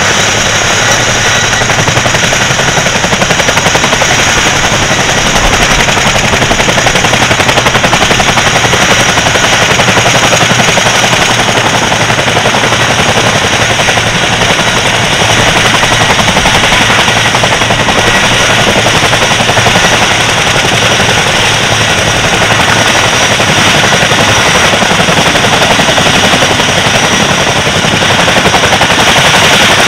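Consolidated PBY Catalina's twin Pratt & Whitney R-1830 Twin Wasp radial engines running at taxi power: a loud, steady rumble of rapid firing pulses as the aircraft taxis.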